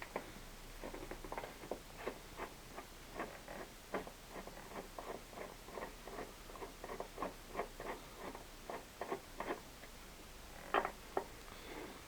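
Phillips screwdriver turning screws out of a Vespa GTS scooter's body panels: a run of small irregular clicks and ticks as the screws are worked loose, with two louder clicks near the end.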